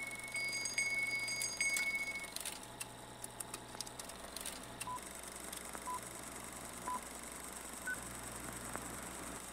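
A small handbell ringing repeatedly, stopping about two seconds in. A flurry of sharp clicks follows, then three short beeps a second apart and a fourth, higher beep.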